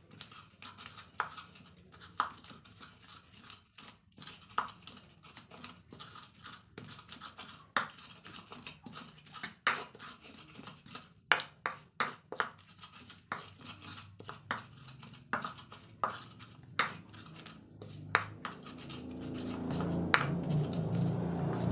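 Stone-ground-style pestle (ulekan) knocking and scraping in a mortar (cobek) as garlic cloves are crushed into chilli paste, with irregular sharp taps about once or twice a second. A low hum grows louder near the end.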